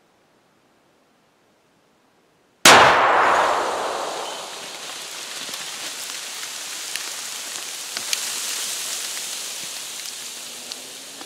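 A single explosion about two and a half seconds in: a sudden loud blast that dies away over a second or so. Debris then patters down through the trees for several seconds, with scattered small clicks, fading slowly.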